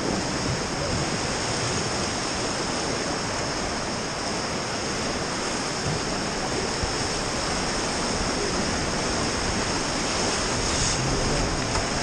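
Whitewater river rapids rushing steadily around an inflatable raft.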